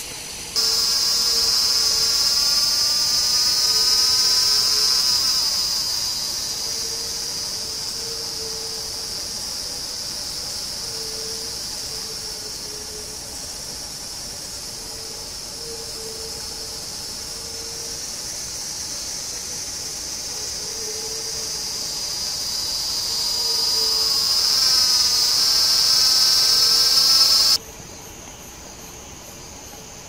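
A loud, high, steady insect drone, swelling, fading and swelling again, that cuts off suddenly near the end.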